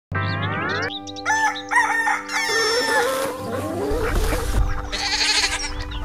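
A rooster crowing, over background music with long held notes. A low rumble comes in about halfway.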